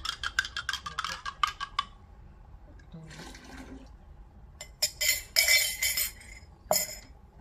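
Water poured and splashing into a glass jar to dissolve fertiliser, in short spells, with a sharp glass clink near the end. The first two seconds hold a rapid rattle of small pieces.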